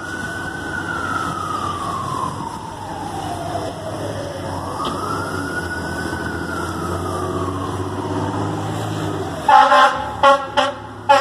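Fire truck siren wailing, rising and falling slowly twice, over a low engine rumble. Near the end, about four short, loud horn blasts.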